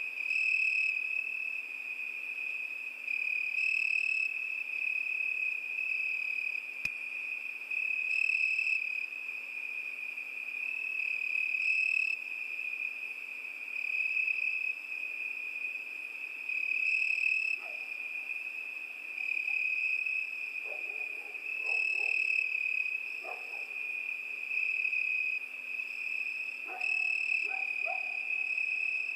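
Crickets chirring at night: a steady, high, continuous trill that swells and fades about every four seconds. From about two-thirds of the way through, short lower calls break in several times.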